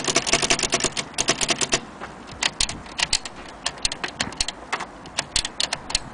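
Vintage Olympia SM3 Deluxe manual typewriter being typed on: a fast run of key strikes for about the first two seconds, then slower, irregularly spaced strikes.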